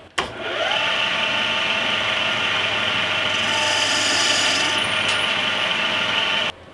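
CNC-converted Belfex BF 520C mini lathe running while a parting-off blade cuts into aluminium: a steady machine whine that rises in pitch just after it starts, with a brighter, hissing cutting sound in the middle. It stops abruptly near the end.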